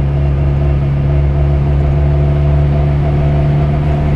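Fiat 126's air-cooled two-cylinder engine running steadily under way, a constant drone heard from inside the small car's cabin.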